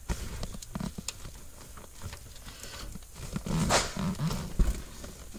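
Wiring harness and corrugated plastic wire loom being handled and pushed up behind a dashboard: rustling and scraping of wires and plastic with light clicks and knocks, and one louder rustle a little past the middle.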